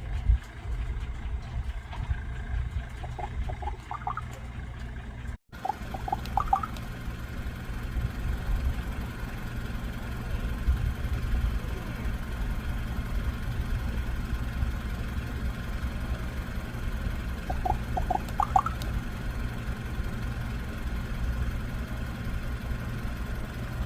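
Raven begging for food with short clusters of quick, rising notes, three bouts of about four notes each, over a steady low rumble.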